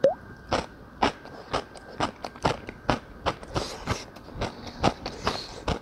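Close-miked chewing of a mouthful of jjajangmyeon (noodles in black bean sauce): wet mouth clicks and smacks at about two a second.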